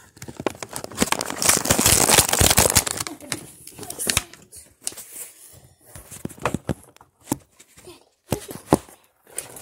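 Plastic and cardboard toy packaging crinkling and tearing as it is handled, densest in the first few seconds, then in scattered crackles and clicks.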